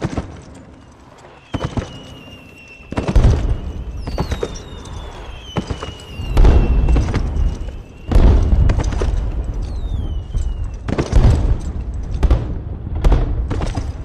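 Fireworks going off: about five deep booms of bursting shells from about three seconds in, with thin whistles falling in pitch from rising rockets between them.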